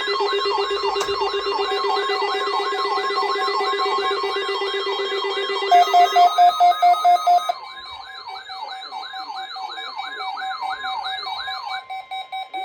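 Emergency alert tones on a weather radio receiver: a steady high alert tone under a wailing siren that wobbles in pitch two to three times a second. Loud pulsed beeps join about six seconds in. The sound drops in level a second and a half later, and the siren stops near the end, leaving the steady tone.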